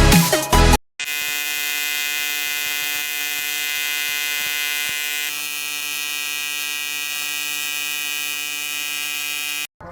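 TIG welder giving a steady electric buzz, its tone shifting slightly about halfway through. A few bars of electronic music cut off just before it begins.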